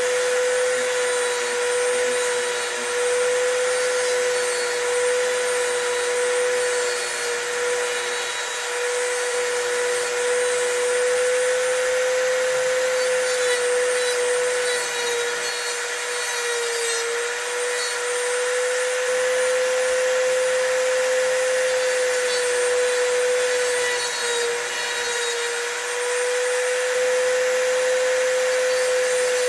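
Dremel rotary tool with a cutoff wheel running steadily with a high whine while cutting a key blank, its pitch sagging briefly a few times as the wheel bites into the metal.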